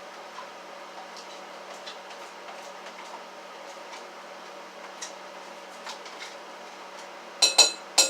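A spoon scooping ricotta cheese into a bowl: faint light clicks and scrapes, then three sharp clinks in quick succession near the end.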